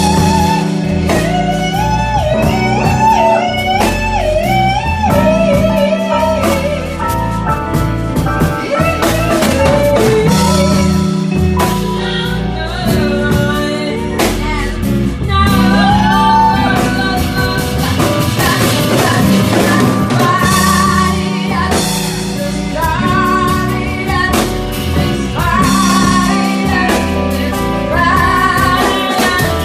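Live band music: a wavering, vibrato-laden melody over guitar, sustained low notes and a drum kit, playing without a break.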